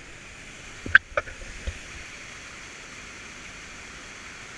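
Steady rush of water pouring over a dam spillway, with a few sharp knocks about a second in.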